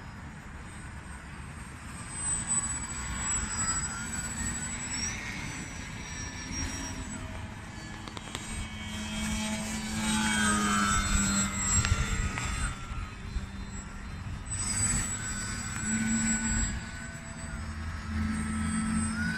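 Electric RC aerobatic model plane in flight, its motor and propeller whine rising and falling in pitch and loudness as it throttles and passes, loudest about halfway through. Gusty wind rumbles on the microphone underneath.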